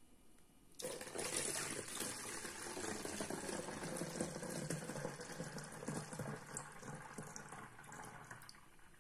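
Strained cherry syrup poured through a plastic funnel into a plastic bottle: a steady splashing stream of liquid filling the bottle. It starts suddenly about a second in and tapers off near the end.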